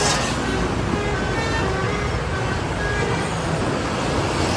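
Road traffic noise from a bus convoy, engines and tyres running steadily, with a few faint, short horn notes in the middle.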